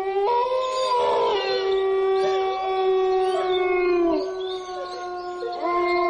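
Canine howling: one long drawn-out howl that falls slightly as it fades around four seconds in, and a second howl starting near the end.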